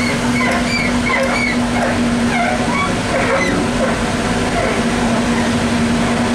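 Cabin sound of a ZiU-683B articulated trolleybus: a steady hum holding one constant tone, with indistinct passenger voices during the first half.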